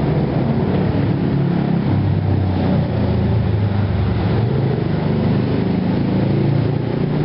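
An engine running steadily with a low, uneven drone.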